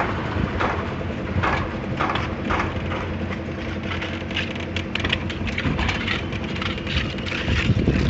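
Steel wheeled concrete trolley rattling and clanking irregularly as it is pushed over steel rebar mesh, over a steady engine drone.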